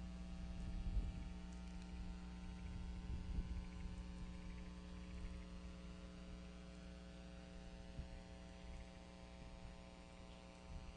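Steady electrical mains hum, several even tones held unchanged over a faint, uneven low rumble.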